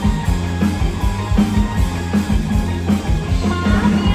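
Live band playing an instrumental passage: drum kit keeping a steady beat over bass and electric guitar.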